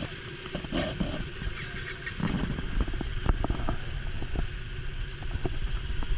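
A group of motorcycles, mostly KTMs, running at idle together in street traffic, a steady low rumble with scattered short knocks and clicks.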